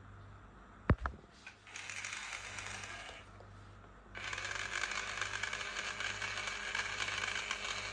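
Two sharp plastic clicks, then a small battery-powered toy drill motor whirring in two runs, the second longer and louder, cutting off suddenly at the end.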